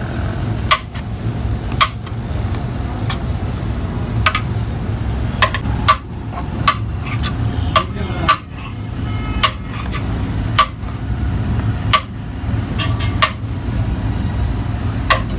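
Metal utensils clanking against a cooking pot: sharp ringing knocks at irregular intervals, about once a second, over a steady low rumble.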